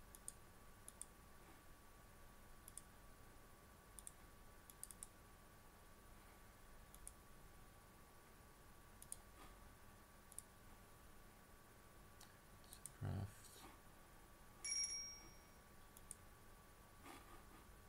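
Scattered computer mouse clicks over quiet room tone, with a short electronic beep about fifteen seconds in, the loudest sound, and a brief low sound just before it.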